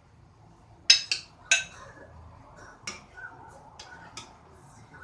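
Utensils clinking against dishes: two loud clinks about a second in, then a few lighter taps spread through the rest.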